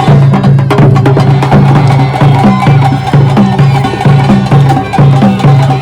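Background music with a steady beat: a repeating bass line and light wood-block-like percussion.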